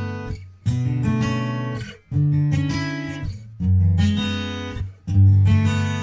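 Acoustic guitar music: chords strummed slowly, a new chord about every second and a half, each left to ring and fade.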